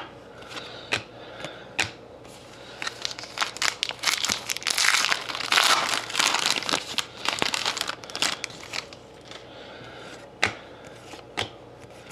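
Foil wrapper of a Panini hockey card pack crinkling as it is torn open and pulled apart. The crinkling is loudest in the middle, with a few short sharp clicks from the cards being handled near the start and near the end.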